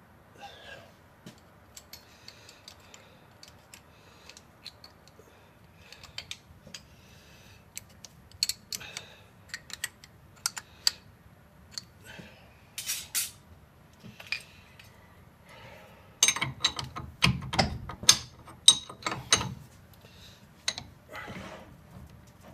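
Scattered metallic clicks, taps and clunks from hand-adjusting a metal lathe's compound rest and quick-change tool post. The clunks come thickest and loudest about two-thirds of the way through.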